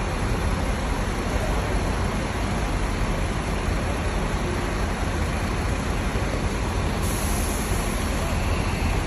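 Steady low rumble of buses idling in a bus interchange, with a higher hiss coming in about seven seconds in.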